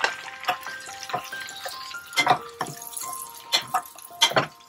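A metal slotted spoon scraping and knocking against a metal pan as semolina is stirred into hot ghee, with sharp clinks every half-second or so, the loudest about two seconds in and near the end. Soft background music of short held notes plays throughout.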